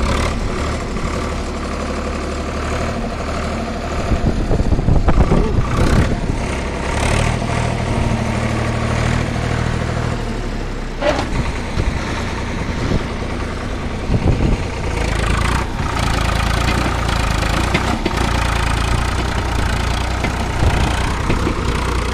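Farm tractor's diesel engine running, revving up louder a few times as it strains to pull a soil-loaded trolley whose wheel is sunk in mud.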